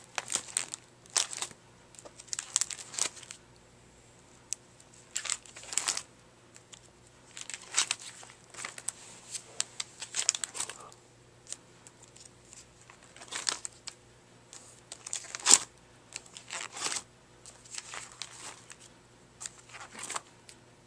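Clear plastic sheet protectors in a ring binder crinkling and rustling as the album pages are handled and turned, in short irregular bursts with brief pauses.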